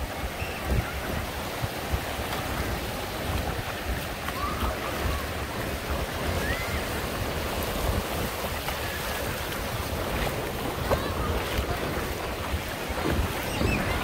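Small sea waves breaking and washing up the sand at the water's edge, a steady surf, with wind buffeting the microphone in low rumbling gusts.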